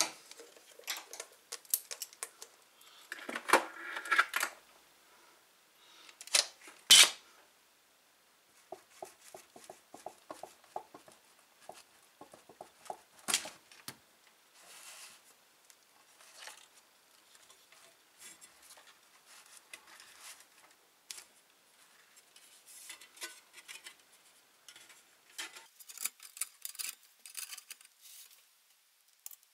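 Clicks, knocks and metal clatter as the sheet-metal case of a desktop PC power supply is handled and fitted back together, with a longer rattle about three seconds in and a sharp knock about seven seconds in.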